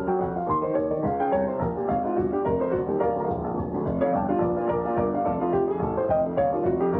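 Boogie-woogie piano played eight-to-the-bar, a steady, busy run of notes over a rolling bass line. It has the dull top end of a 1941 film soundtrack.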